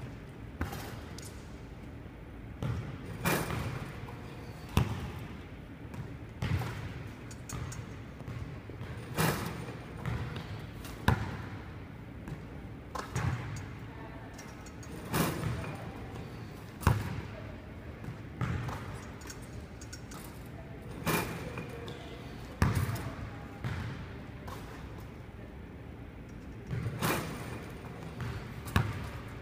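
Basketball repeatedly bouncing and hitting the hardwood floor, rim and return net as shots are taken and fed back by a shooting machine. Sharp thuds come about every two seconds in an echoing gym.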